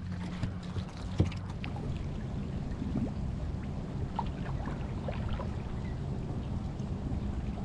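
Water splashing and dripping lightly around a kayak, with scattered small ticks and one sharper knock about a second in, over a low steady hum.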